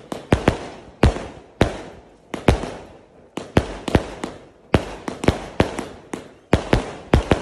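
A 0.8-inch, 388-shot firework cake firing in rapid succession: an irregular string of sharp bangs, about three a second, some coming in quick pairs, each fading off quickly. There is a short lull a little before halfway.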